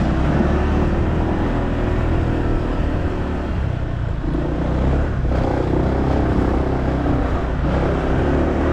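Motorbike engine running while the bike rides along, the sound easing slightly and picking up again partway through.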